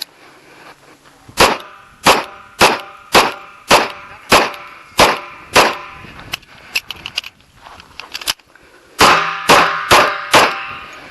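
Kimber Custom II 1911 pistol firing .45 ACP rounds on an action-shooting stage. There is a string of about eight shots roughly half a second apart, a pause of about three seconds, then four quicker shots near the end.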